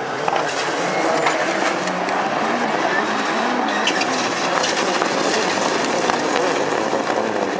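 Rallycross Supercar engines racing around the circuit, their revs rising and falling, with scattered sharp cracks over the steady engine noise.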